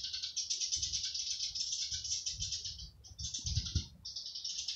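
Cicadas buzzing in a continuous high, rapidly pulsing drone that drops out briefly twice, about three and four seconds in. A few low thumps on the microphone about three and a half seconds in.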